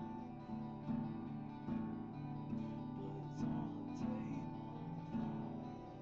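Music led by guitar, chords strummed in a repeating pattern with sustained ringing notes.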